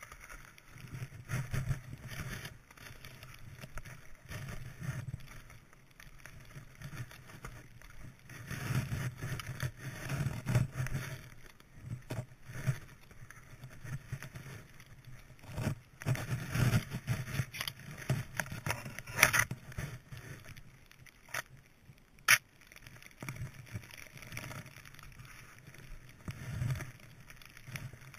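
Hiss and swish of a rider sliding and turning through deep powder snow, in uneven surges with low rumbling on the camera microphone. A few sharp clicks or knocks in the second half.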